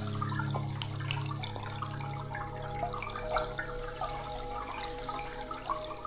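Flowing, trickling water with scattered drips, over an ambient music bed of long held low notes with a few higher notes coming in.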